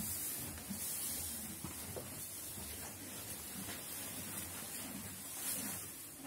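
A horse eating hay: faint, irregular crunching and rustling, with a few soft clicks.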